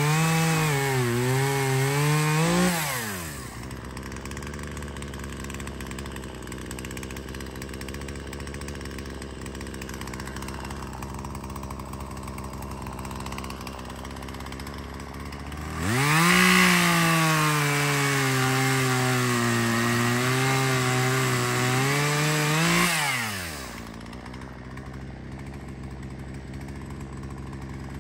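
Chainsaw cutting wood at full throttle, its pitch dipping and recovering under load, then dropping to idle about three seconds in. After a long idle it revs up again about halfway through, cuts for about seven seconds with the pitch again sagging and rising, and falls back to idle near the end.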